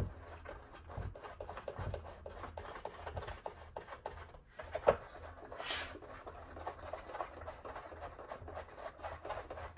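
Faint rubbing and scratching of hands working 10-32 nylon wing bolts through a basswood hold-down plate on a foam board wing, with one sharp click about five seconds in.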